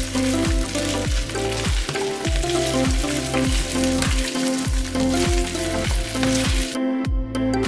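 Asparagus spears and sliced garlic sizzling in olive oil in a skillet as they are turned, over background music with a steady beat. The sizzle cuts off suddenly near the end, leaving only the music.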